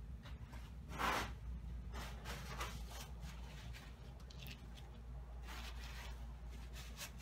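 Hands handling a halved jackfruit: a few short rustling scrapes against the fruit, the loudest about a second in, over a steady low hum.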